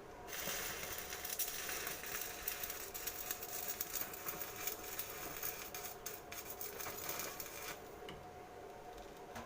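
Lathe rigged for milling, cutting metal: a dense crackling, scraping noise of the cutter biting, starting just after the beginning and stopping abruptly near the end, over the steady hum of the machine's motor.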